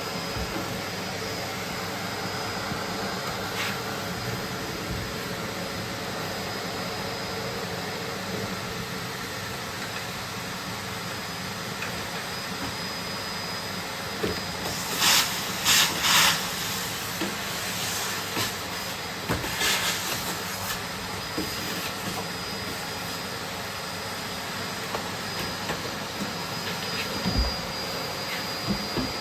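Bosch BGS21X320 bagless cylinder vacuum cleaner running steadily, a rush of air with a thin steady whine over it. A few short hissing surges come about halfway through.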